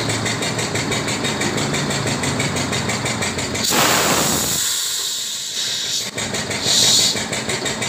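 Pneumatic tyre bead press on a truck wheel: a steady engine-like running noise, then, nearly four seconds in, a loud rush of compressed air as the valve is opened and the ram lifts off the tyre, fading over about two seconds. A short, sharp hiss of air follows near the end.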